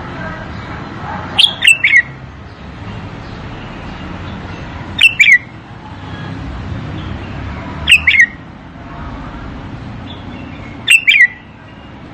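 Bulbul singing: four short phrases, each two or three quick falling whistled notes, about every three seconds, over a steady low background rumble.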